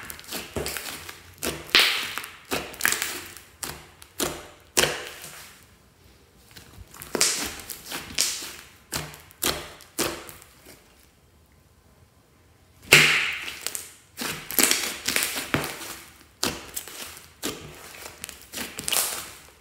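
Fluffy slime being worked by hand: a run of sticky squelches, slaps and little air pops that come in irregular bunches, with a pause of about two seconds past the middle.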